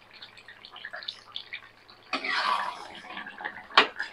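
Chicken stew gravy simmering uncovered in a kadai, a steady run of small bubbling pops and blips, swelling for a moment about two seconds in. A single sharp knock sounds near the end.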